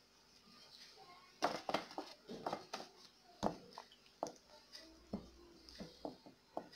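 Dough pieces being turned and coated with oil in a glass bowl, with a plastic oil bottle handled over it: irregular light knocks and taps against the glass and soft handling sounds, starting about a second and a half in.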